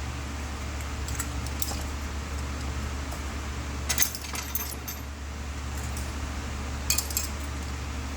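Small hard objects clicking and clinking in three short clusters, the loudest about four seconds in, over a steady low hum.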